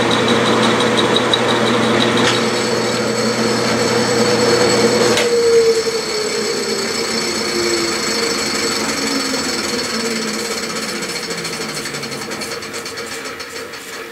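Metal lathe running while a parting-type tool cuts a groove into a turning metal disc, a steady machine whine over cutting noise. About five seconds in, the motor hum stops and a whine falls in pitch as the spindle winds down.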